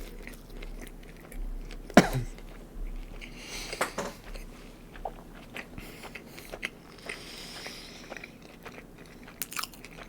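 Close-up mouth sounds of a person chewing a Big Mac: wet smacks and small clicks as the bun and patties are chewed. A single sharp knock about two seconds in is the loudest sound.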